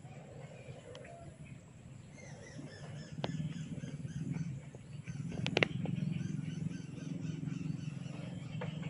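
Hair cracking: short, sharp snapping cracks as locks of hair are pulled and twisted during a head massage. There is a faint crack about a second in, a louder one just past three seconds, and a quick cluster of two or three around the middle. Birds chirp faintly in the background.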